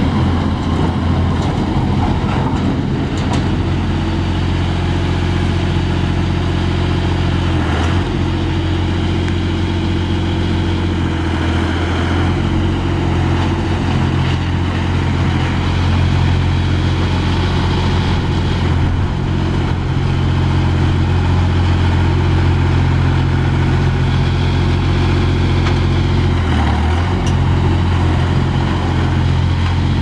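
Engine of a 3-ton tandem-drum road roller running steadily as the roller drives, with its note dipping briefly about eight seconds in and again near the end.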